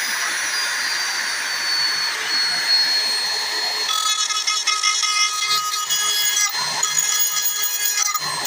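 Rotary tool spinning a pink grinding stone at high speed with a high whine. About four seconds in the stone bites into rusty metal and the sound turns rougher and harsher.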